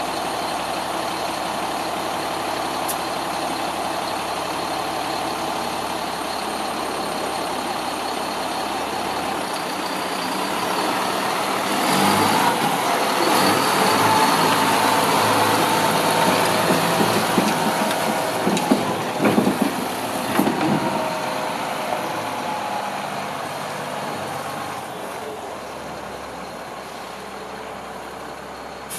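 Diesel engine of a 2005 Sterling L8500 single-axle dump truck running steadily. It grows louder through the middle, with a few short sharp sounds about two-thirds of the way through, then fades as the truck drives away.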